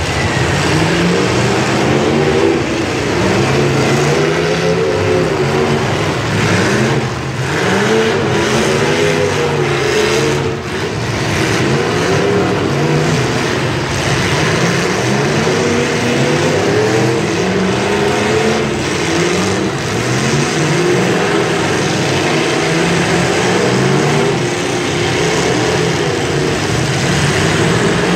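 Demolition derby cars' engines revving hard together, their pitch rising and falling over and over as the drivers accelerate and back off, with a few brief bangs of collisions about seven to ten seconds in.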